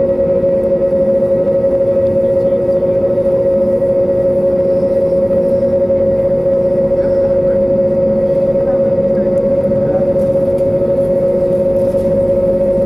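Steady cabin drone of an Airbus A320neo on the ground: a constant mid-pitched hum with a weaker, lower tone beneath it over a low rumble, unchanging throughout.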